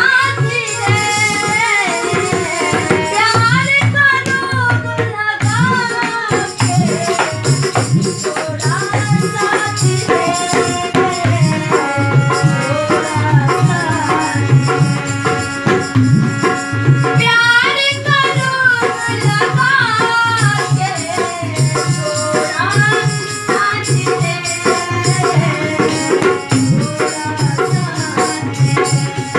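A woman singing a Bhojpuri song to her own harmonium accompaniment, with a dholak keeping a steady beat underneath.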